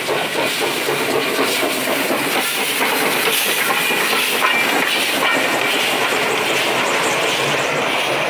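Steam locomotive running past at close range as it pulls away, with steam hissing and its wheels clattering on the rails. The sound is loud and steady throughout.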